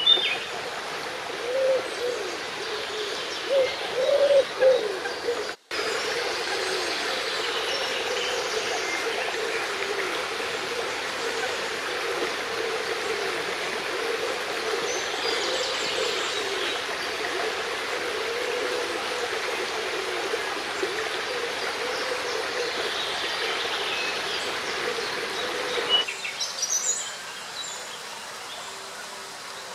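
Steady rush of flowing brook water with high, short bird chirps over it. Near the end the water sound drops away abruptly to a quieter background, and a few more chirps follow.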